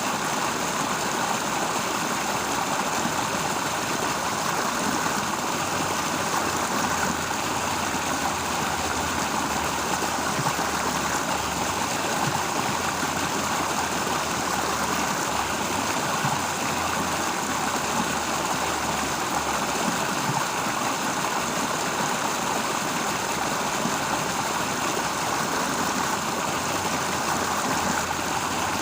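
Steady rushing water of a stream flowing, even and unbroken.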